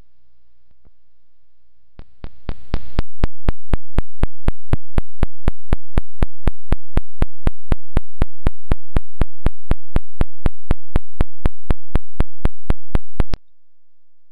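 A low electrical hum under faint hiss, then a hiss that swells about two seconds in. It is followed by a loud, even run of sharp clicks, about four a second, which stops abruptly near the end and leaves the hum.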